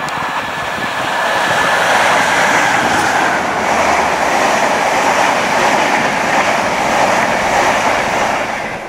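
Passenger train passing close beneath at speed: a loud, steady rush of wheels on the rails and passing coaches that builds in the first second or two and holds through the middle.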